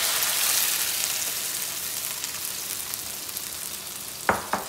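Beaten egg hitting hot oil in a wok and sizzling. The sizzle is strongest as the egg goes in and eases off over the next few seconds. Near the end come two sharp knocks.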